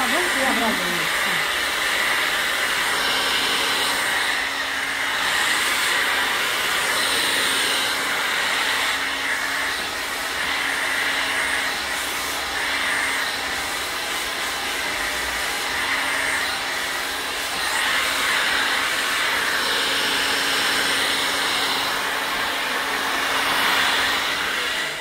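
Handheld hair dryer blowing steadily, a constant motor hum under the rush of air, which swells and fades every couple of seconds as the dryer is moved over the hair.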